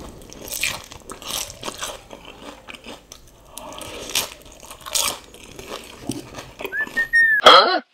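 Close-miked eating: chewing and slurping mouthfuls of instant noodles and fried egg, with wet mouth clicks and smacks throughout. Near the end a short high whistle-like tone rises and falls, followed by a loud brief sound.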